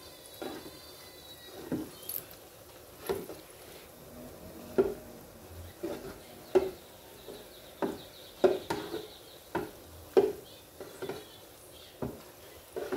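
A spoon and a slotted skimmer knocking against the metal basket of a small electric deep fryer while mikate (fried dough balls) are turned in the oil: a series of irregular clicks and knocks.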